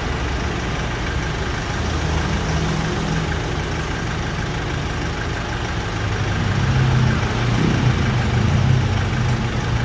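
Nissan Navara pickup's engine idling steadily, a low even hum that grows a little louder over the last few seconds.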